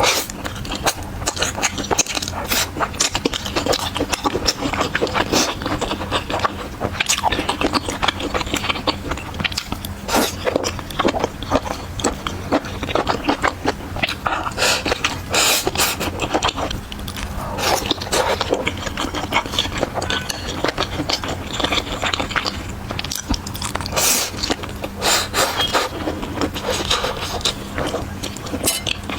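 Close-miked eating sounds: a steady run of irregular crackles and clicks from chewing and biting food, with utensils scraping, and a faint steady hum underneath.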